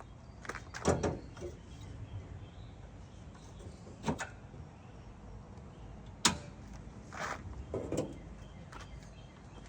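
A few scattered sharp knocks and clunks of equipment being handled and set down, the loudest about a second in and about six seconds in, over a low steady background.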